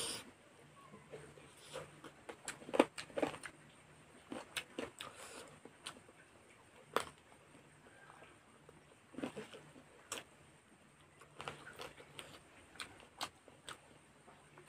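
Close-up eating sounds of a man eating chicken curry and rice by hand: wet chewing, lip smacks and small mouth clicks at irregular intervals, with a few sharper clicks about 3 s and 7 s in. A faint low hum comes and goes underneath.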